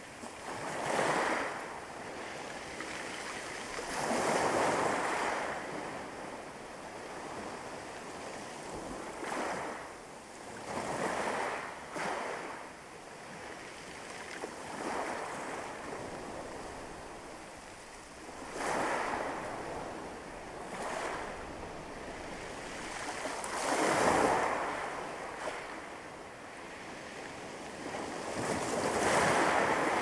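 Small sea waves breaking and washing up a pebble beach: a swell of surf noise every few seconds, with a steady lower wash in between.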